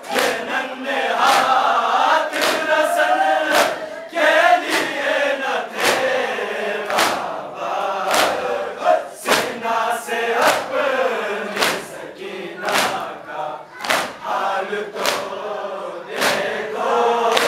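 Men chanting a noha (Muharram lament) together, with a sharp slap roughly once a second from rhythmic chest-beating (matam).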